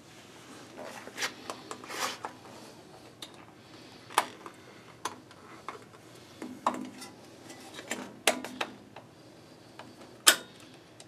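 Irregular sharp metal clicks and clinks of a hand tool, screws and terminals being handled at the electrical box of a table saw's motor while its wires are fastened. The loudest click comes near the end.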